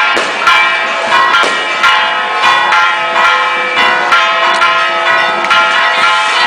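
Church bells clanging rapidly, about two strikes a second, each stroke's tones ringing on into the next.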